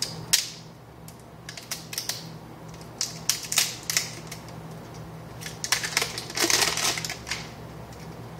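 Hands handling a new fluorescent lamp ballast and its wire leads: scattered light clicks and taps, with a denser rustling stretch about six seconds in.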